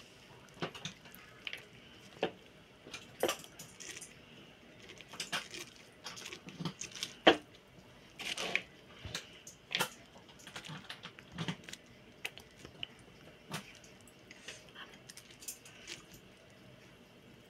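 Shredded red cabbage in vinegar, salt and lemon being scooped by hand and pushed into a glass jar: irregular soft, wet handling sounds with light clicks and taps against the glass.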